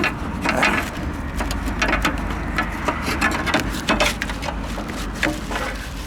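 Irregular crackling, rustling and small clicks of a plastic cover being handled and pushed onto a truck battery's terminals, over a steady low rumble.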